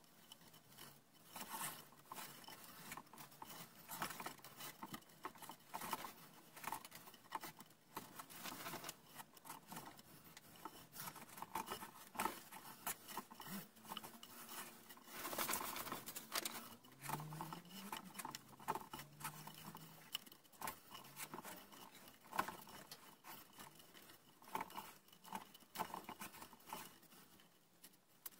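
Sisal rope being wrapped tightly by hand round a wooden post: quiet, irregular rustling and scraping of the coarse rope rubbing against itself and the wood.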